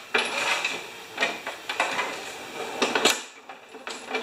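Walk-behind lawn mower rolled and lifted onto a wooden platform cart: a string of clunks and rattles as its wheels and deck knock on the boards, with a sharper knock about three seconds in.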